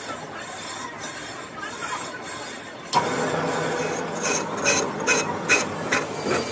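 Metal lathe switching on about three seconds in, its chuck spinning a rusty steel cylinder. Then comes a regular sharp ticking, two or three times a second, as the cutting tool starts to bite the uneven rusty surface.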